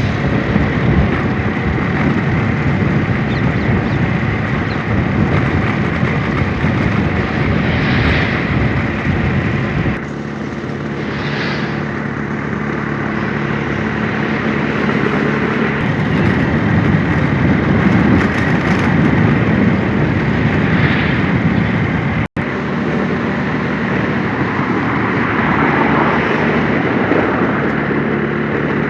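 A vehicle driving along a road: steady engine, road and wind noise without pause, broken once by a split-second dropout about two-thirds of the way through.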